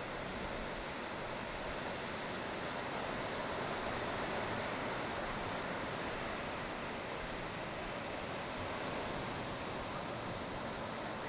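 Ocean surf breaking and washing, a continuous steady hiss that swells slightly about four seconds in.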